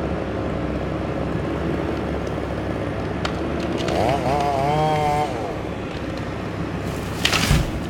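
A motor drones steadily throughout. About halfway through a brief wavering pitched tone rises over it, and near the end comes a short, loud crash with a low thud.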